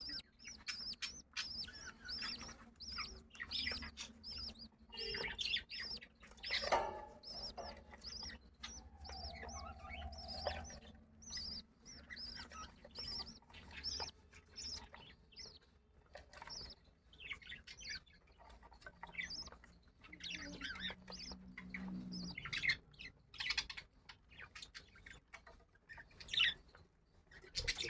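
Budgerigars chirping in quick runs of short, high calls while the adults feed their chicks.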